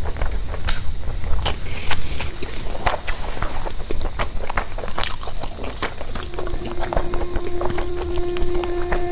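Close-miked eating: chewing and biting with many small wet mouth clicks. About six seconds in, a steady tone comes in and holds.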